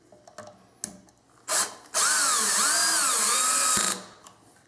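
Cordless drill/driver driving a coarse-thread pocket-hole screw into soft pine. After a few light clicks and a short blip, the motor runs for about two seconds, its pitch rising and falling as the screw bites, then stops.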